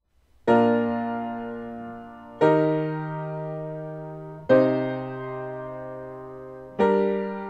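Piano playing four slow four-voice block chords in B-flat major, about two seconds apart, each struck and left to fade: I, IV, ii, vi, the first chords of a progression for harmonic dictation.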